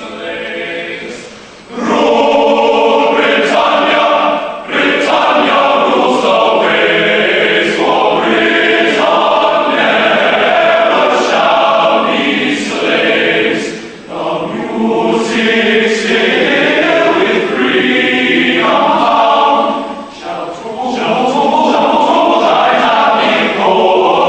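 Background music: a choir singing long sustained phrases, with a few short breaks between them.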